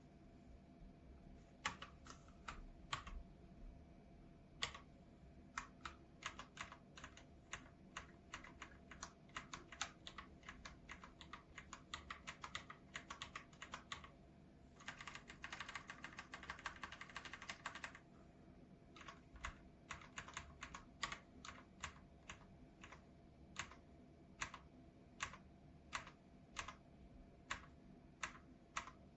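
Typing on a KOORUI MK082 mechanical keyboard with red linear switches. A few scattered keystrokes give way to fast typing, then a dense flurry of key presses about halfway through, then slower, evenly spaced single presses.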